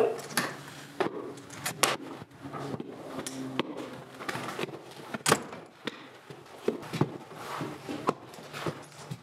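A wooden door being opened, then scattered knocks, clicks and shuffling as someone walks in across a wooden floor, with a sharp knock about five seconds in.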